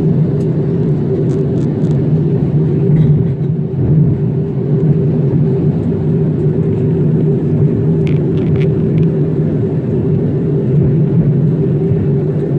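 Steady cabin noise of a jet airliner in flight, heard from inside the cabin: an even rush of engines and airflow with a steady low hum.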